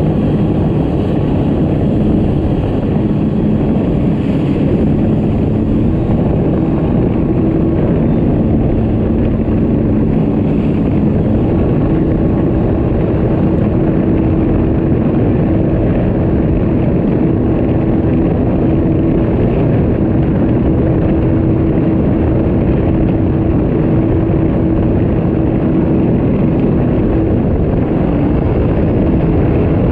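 Sea-Doo RXT-300 personal watercraft running steadily at speed, its engine drone carrying a steady tone that shifts slightly in pitch a few times, under a dense rush of wind and water noise.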